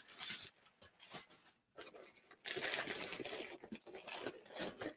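Packaging crinkling and rustling as items are handled and unwrapped, with scattered small clicks. It grows busier about halfway through.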